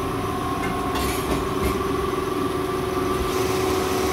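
A motor running steadily, humming at a constant pitch, with a couple of light clatters about a second in.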